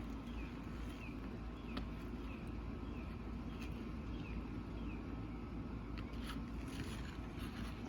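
Steady outdoor rumble, perhaps distant traffic, with a bird giving short falling chirps over and over and a few light clicks or taps, likely from the roofing work.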